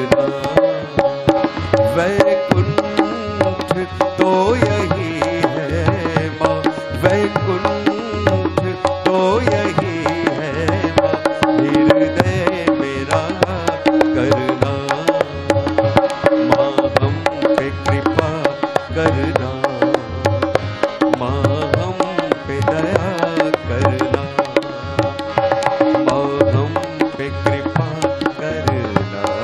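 Indian devotional bhajan music: a harmonium playing sustained melody over a steady rhythm of tabla and dholak.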